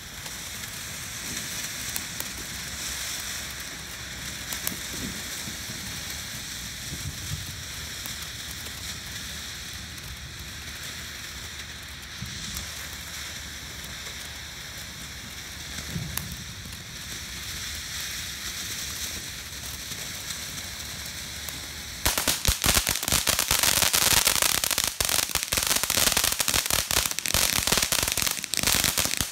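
Ground firework fountain spraying sparks with a steady hiss. About twenty-two seconds in it turns suddenly louder into a dense, rapid crackling as crackling stars pop across the ground.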